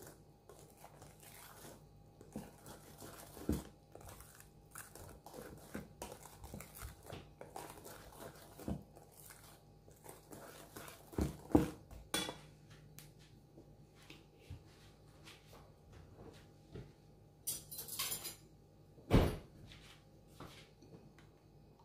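Wire whisk stirring thick carrot cake batter in a stainless steel mixing bowl: a steady run of light clicks and scrapes as the wires hit the bowl, with several louder knocks.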